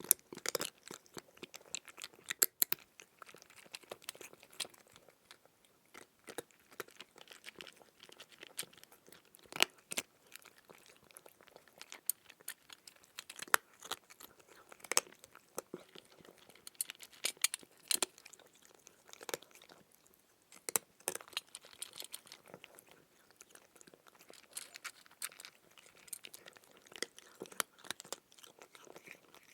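A cat chewing food, with irregular crunches and clicks of its teeth, some louder than others.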